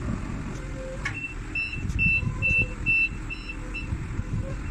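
Cat DP150 diesel forklift engine running, with a short knock about a second in. Then its reversing alarm beeps about six times, a bit over two beeps a second, as the forklift backs up.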